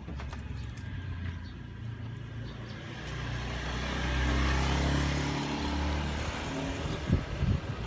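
A motor vehicle passing close by: its engine rumble and tyre noise swell about halfway through and fade away. A few dull knocks near the end.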